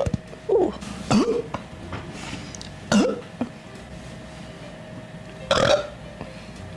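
A young woman burping in a string of short burps: two close together about a second in, one near three seconds, and a longer, louder one a little after five seconds.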